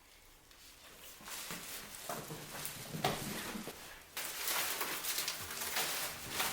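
Rustling and light handling noises with scattered clicks, growing louder about four seconds in; soft background music comes in near the end.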